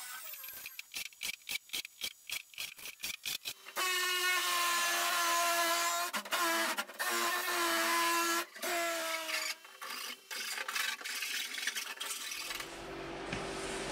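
Rapid, even rasping strokes, about four or five a second, on the edge of quarter-inch ABS plastic sheet. Then a handheld cordless power tool runs with a steady whine, stopping and restarting a few times as it trims the ABS. A steadier low hum near the end.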